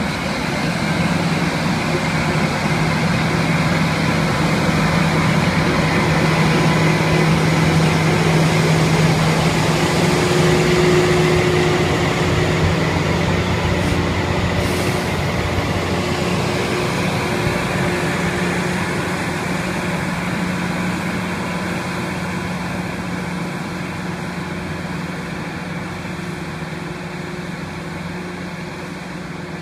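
Loram rail grinder train passing with its diesel engines running, a steady hum under a wide rushing noise. It grows loudest about ten seconds in, then fades steadily as the train moves away.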